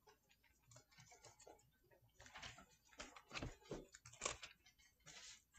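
Faint rustling of thin Bible pages being leafed through, a series of short, soft rustles that come thicker after about two seconds.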